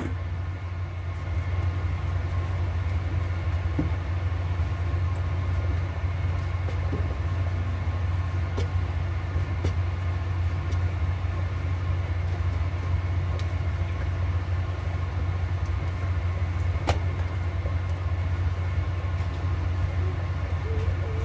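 Steady low mechanical hum, with a few faint knocks.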